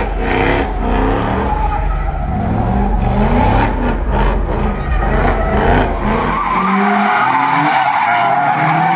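Car engines revving up and down with tires squealing, as in a burnout or skid. About two-thirds of the way through, the sound cuts abruptly to another recording, where the tire squeal carries on over the revving.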